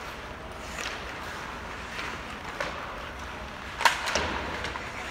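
Rink noise during a hockey game: a steady background hum with several sharp knocks of sticks, puck and boards. The loudest knock comes a little before four seconds in.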